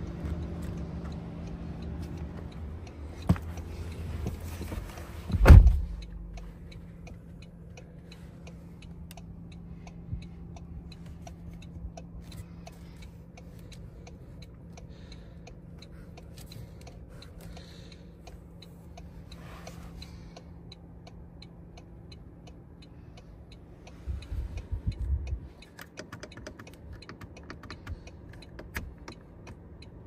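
Driver's door of a 2025 Toyota Camry LE pulled shut with a heavy thud about five seconds in, just after a sharp click. Then a steady low hum inside the closed cabin with faint ticking, and a few soft knocks near the end.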